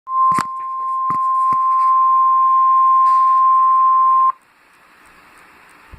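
Emergency Alert System tornado-warning attention signal: one loud, steady single-pitch tone near 1 kHz with a few clicks over it. It cuts off suddenly about four seconds in, leaving faint radio hiss.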